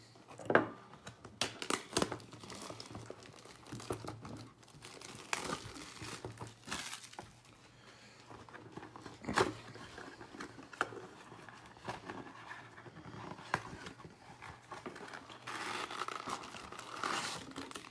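A cardboard blaster box of baseball cards being handled and torn open, with short scrapes and tearing of the cardboard. Near the end comes denser crinkling as the wrapped card packs are pulled out.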